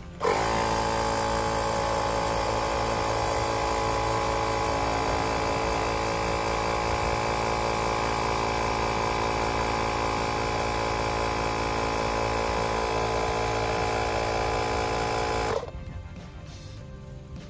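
A Xiaomi 70mai Air Compressor Lite's electric pump starts at the press of its button and runs with a steady, even hum while inflating a car tyre. It cuts off suddenly about fifteen seconds later, stopping on its own at the preset tyre pressure.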